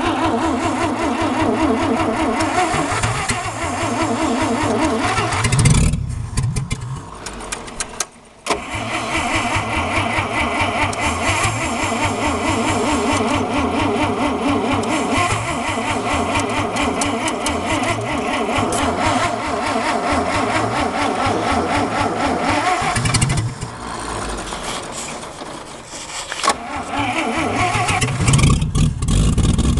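The long-dormant engine of a 1955 Chevrolet barn-find pickup cranking on the starter and firing unevenly as it tries to start for the first time. It stops briefly about eight seconds in, then cranks and fires again, and it is louder near the end.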